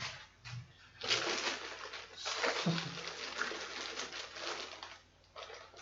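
Rustling and scraping of packaging being handled, lasting a few seconds.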